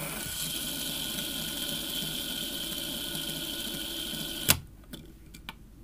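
Plastic simple dimple fidget spinner whirring steadily as it spins flat on a tabletop, its steady hum ending in a sharp click about four and a half seconds in, followed by a couple of faint ticks.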